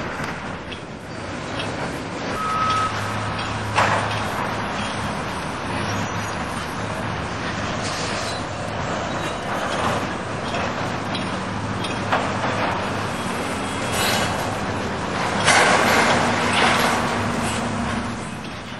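Heavy demolition machinery running steadily, with a short beep early on, a sharp knock about four seconds in, and a louder spell of crashing and scraping about three-quarters of the way through as structure is torn down.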